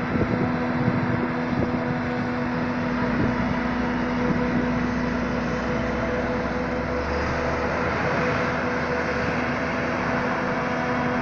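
Claas Jaguar 870 forage harvester chopping maize, with a Fendt 936 Vario tractor running alongside pulling the silage trailer: a steady, loud machinery drone with a constant hum.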